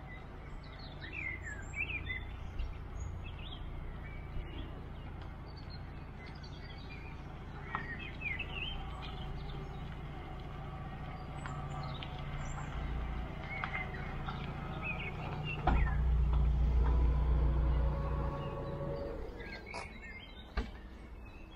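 Lada 4x4 Urban SUV towing an empty car trailer, driving slowly up the lane and passing close by. Its engine hum grows and is loudest about three-quarters of the way through, then fades as it moves on. Birds chirp throughout.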